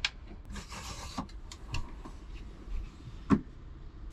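A cabinet flap's latch clicks open. A wooden slide-out table then rubs and scrapes as it is drawn out on its runners, with a few small clicks. One louder wooden knock comes a little over three seconds in.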